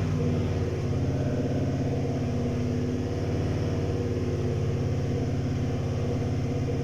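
2018 Sierra pickup's engine idling steadily with a stuttering, uneven beat from an intermittent misfire, which the mechanic is treating by replacing the fuel pump.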